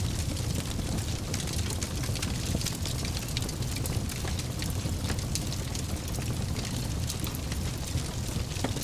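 Wood fire in a fireplace crackling, with frequent sharp pops over a steady low rumble of the burning.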